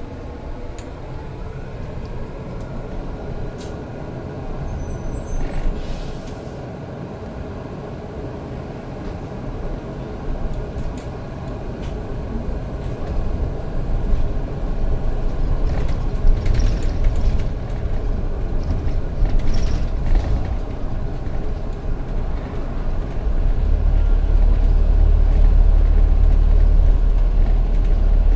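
Bus running, heard from inside: a steady engine and road rumble that builds louder through the second half, with a few rattles and a short air hiss about six seconds in.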